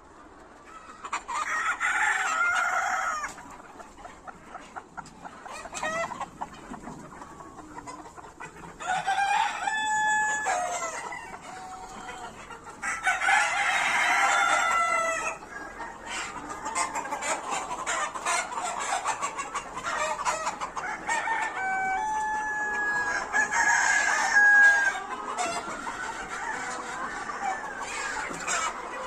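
Flock of adult chickens clucking, with roosters crowing loudly several times: four long crows of a second or two each, spread through.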